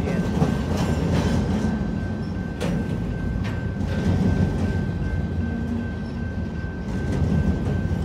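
Intermodal well cars rolling over the crossing: a steady low rumble of steel wheels on rail, broken by a few sharp clanks, with the grade-crossing bell sounding as a thin, steady high tone above it.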